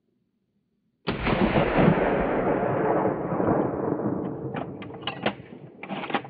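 A hunting rifle shot about a second in, with a long rolling echo that fades over about three seconds, followed by a few short sharp clicks.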